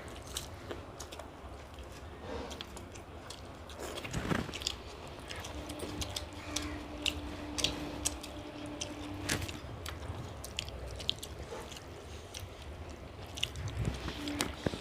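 People chewing and biting into fried fish and curry, with wet mouth sounds and scattered sharp crunches and clicks.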